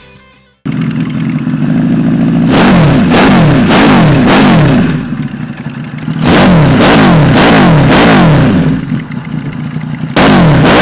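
Motorcycle engine heard through aftermarket twin chrome mufflers. It cuts in suddenly at idle, then the throttle is blipped in quick repeated revs, in three bursts with idle between.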